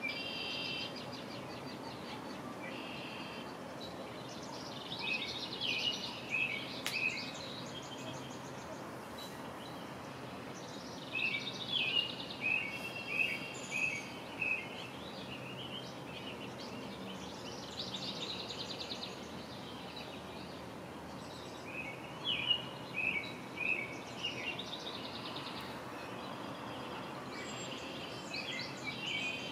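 A songbird in the marsh sings the same short, trilling phrase over and over, roughly every five or six seconds, over a steady low background noise.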